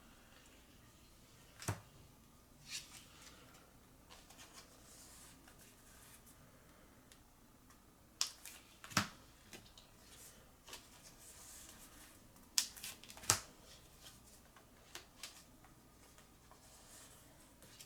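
Trading cards being handled and slid into plastic card sleeves: soft plastic rustling with scattered sharp taps and clicks, the loudest a few about nine and thirteen seconds in.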